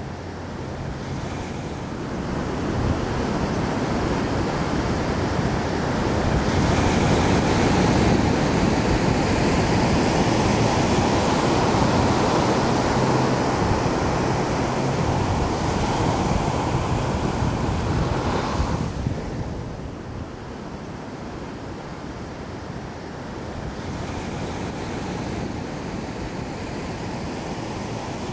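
Rushing wind-like noise with a low hum underneath. It swells over the first few seconds, stays strong through the middle, then drops sharply about nineteen seconds in to a quieter steady rush.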